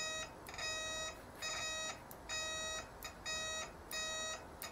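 An old handheld multimeter's continuity-test beeper sounding as its test probes touch together: six pitched beeps of about half a second each, roughly one a second, ending in two short blips. The probe tips are old and mucky with corrosion, which the owner says affects how they make contact.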